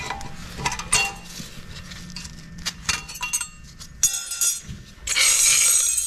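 Metal clinks and light scrapes as a pry bar lifts the old brake pad hardware clips out of a Honda Fit's front caliper bracket. Near the end there is a harsher scraping noise lasting most of a second.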